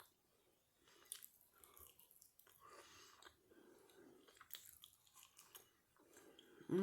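Faint close-up chewing of food: soft wet smacking and small crunches of a mouth eating, with a hummed 'mmm' starting right at the end.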